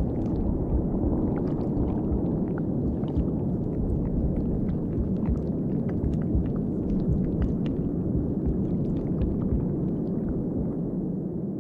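Ambient sound-design soundtrack: a steady, low rumbling noise with scattered faint clicks and pops.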